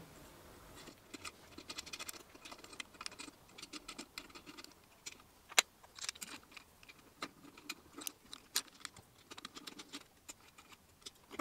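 Hex key turning small screws and plastic holder parts knocking against an aluminium extrusion frame: a scatter of light clicks and taps, the sharpest about five and a half seconds in.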